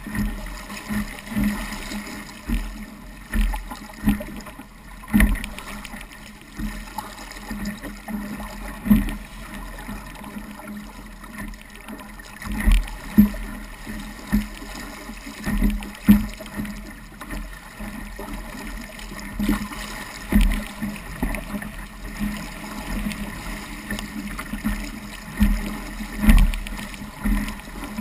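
Water rushing past and waves slapping against the hull of a small Sabot sailing dinghy sailing fast through chop, with irregular low thumps every second or so as it meets the waves.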